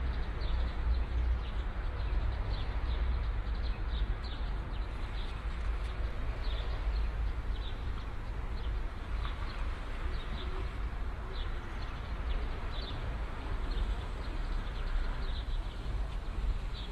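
Outdoor ambience bed: a steady low rumble with short bird chirps scattered throughout.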